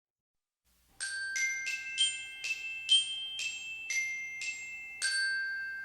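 A short jingle of glockenspiel-like bell notes: about ten struck notes at roughly three a second, starting about a second in, the last note ringing on.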